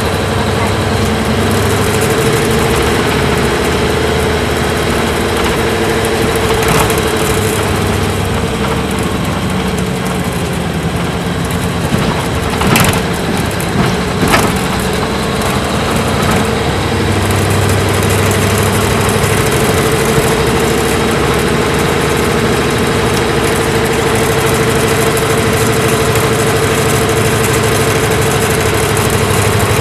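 Isuzu Cubic KC-LV380L city bus's V8 engine running under way, heard from inside the bus. The engine note eases off and drops around the middle, with two sharp knocks, then the steady note comes back strongly.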